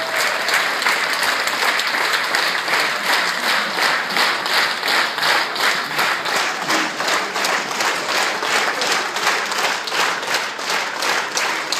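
Theatre audience applauding, the clapping falling into a steady unison rhythm of about three claps a second.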